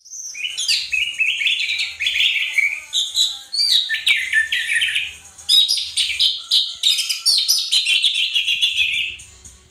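Orange-headed thrush (anis merah) singing a continuous, rapid, varied song of chattering phrases, almost without pause, fading near the end.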